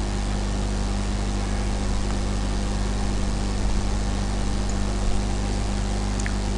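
Steady low hum under an even hiss, with one faint click near the end.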